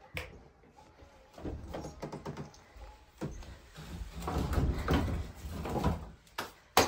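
Dry firewood sticks knocking and scraping as a bundle is carried in and set down by a kitchen stove, in irregular clatters with one sharp knock near the end.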